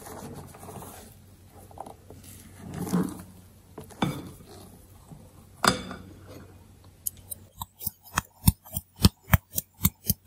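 Red silicone spatula scraping and folding thick batter in a glass bowl, with a couple of sharp knocks against the bowl. From about seven seconds in, a steady tapping, about three taps a second, as flour is sifted through a sieve onto the batter.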